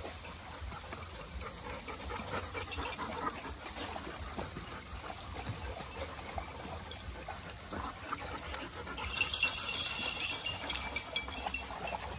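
Labrador retrievers playing and wrestling in a shallow creek, making dog vocal sounds while splashing in the water.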